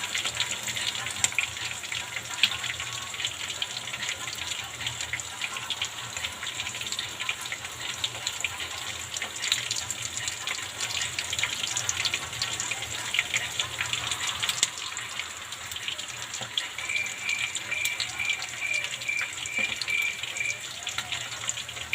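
Chicken wings frying in hot oil, a steady sizzle full of small crackles. About three quarters of the way through, a quick run of nine or so short high beeps.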